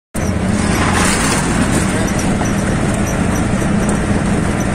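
Auto-rickshaw running along a road, heard from on board: a steady engine drone mixed with road and wind noise.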